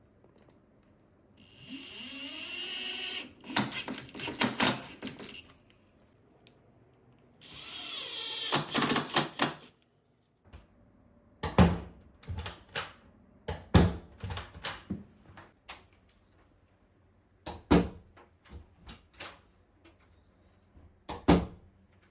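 A cordless power drill/driver spins up and drives screws in two bursts, each ending in a rapid rattle of clicks, as the new door striker plate is fixed to the jamb. Then come scattered sharp clicks and knocks of handling the hardware.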